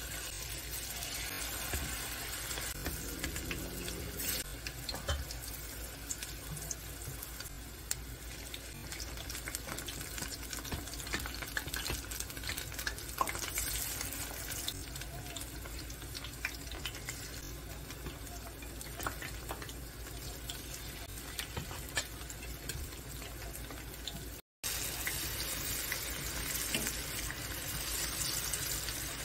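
Battered eggplant strips deep-frying in hot oil in a small pot: a steady sizzle with scattered crackles, broken by a brief dropout near the end.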